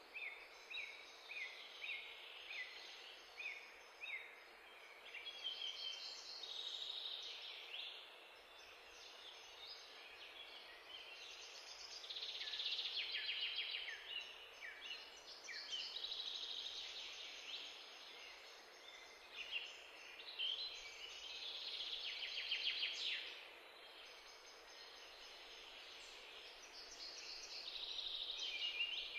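Songbirds chirping and singing: a run of short falling chirps in the first few seconds, then recurring bursts of fast trills, over a faint steady hiss.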